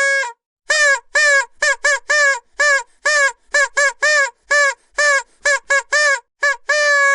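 A vuvuzela blown in a stream of short staccato toots, two to three a second, each bending briefly in pitch as it starts. Near the end comes one longer held blast of about a second.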